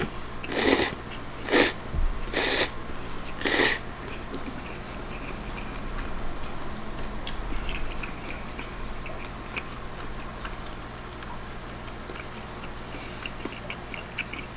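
A person slurping spaghetti noodles off a fork: five quick, loud slurps over the first four seconds, then softer chewing with small mouth clicks.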